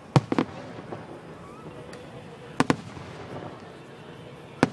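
Fireworks bursting in sharp bangs: two in quick succession just after the start, a close pair about two and a half seconds in, and one more near the end.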